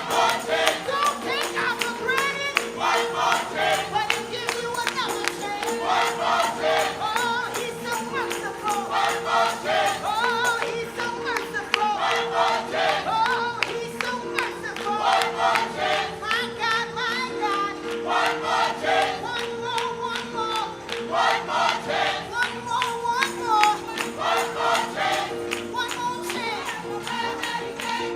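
Gospel worship music: voices singing a melody over a steady sustained keyboard chord, with a regular percussion beat.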